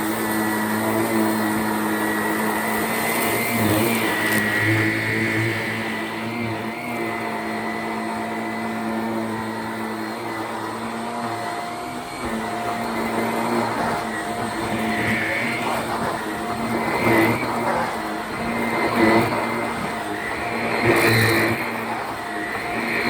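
Shark Rocket stick vacuum running steadily, its motor whine constant as it sucks oatmeal off carpet, with a few louder surges and crackles in the second half as flakes are pulled up.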